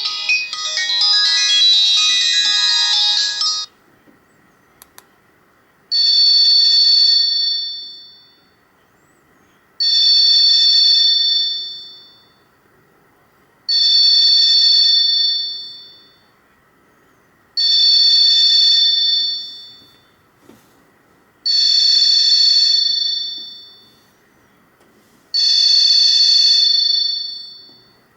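Alcatel 2000X ringtones played through an Alcatel 1054D phone's speaker. A melodic ringtone ends a few seconds in, two faint clicks sound in the short pause, then another ringtone begins: a high ring burst of about two seconds that fades out, repeating roughly every four seconds.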